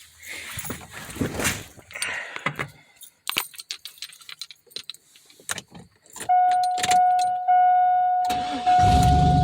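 Keys jangling and clicking, then the dash warning chime of a 2002 Chevrolet Avalanche Z71 sounding in steady repeated tones. Near the end the V8 engine cranks briefly and catches, settling into a steady idle.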